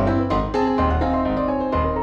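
Background instrumental music: struck keyboard notes in a brisk melody over a steady bass line.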